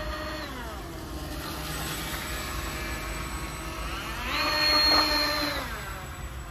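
Twin Roxxy brushless outrunner motors driving TFL water-jet pumps on an RC model boat, whining as the throttle is worked: a high whine that falls away in the first second, then climbs again about four seconds in, holds loudest for over a second, and drops off near the end.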